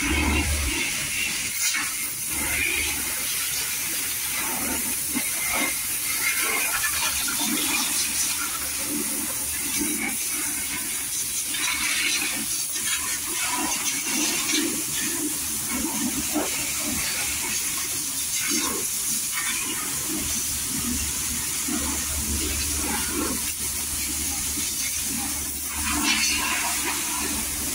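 Steady hissing spray of a service-station high-pressure washer or spray gun working over a scooter, with a low machine hum underneath at times and a few short knocks.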